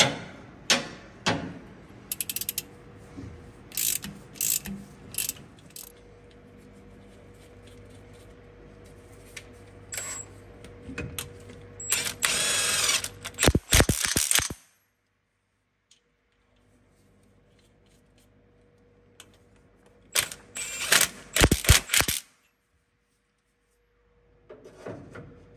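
Ratcheting box-end wrench clicking as it unscrews cylinder-head studs on double-jammed nuts. Scattered clicks and metal taps at first, then a quick run of rapid ratchet clicking about halfway through and another near the end.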